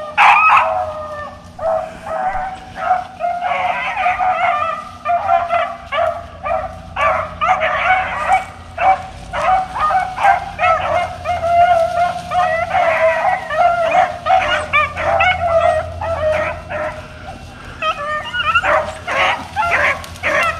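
A pack of beagles baying on a cottontail's trail, several dogs' calls overlapping with no break. This is hounds in full cry, running a rabbit.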